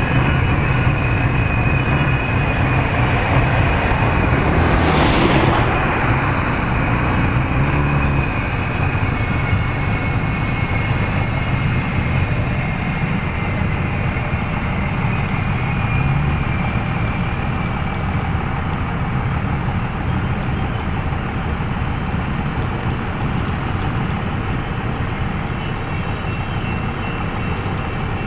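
Train running with a steady rumble, and a brief hiss about five seconds in.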